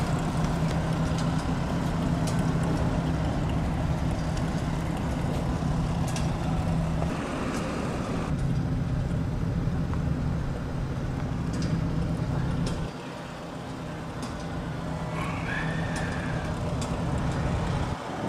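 An engine running steadily, a low even hum with a few sharp clicks over it. About 13 seconds in the low part of the hum drops away and it goes quieter, and a short high chirp sounds a few seconds later.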